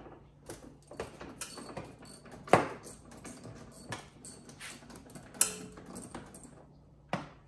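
A 13 mm wrench clicking and clinking on the nut of the under-hood battery disconnect terminal as the battery cable is loosened. Irregular small metal clicks, with sharper knocks about two and a half seconds in and again about five and a half seconds in.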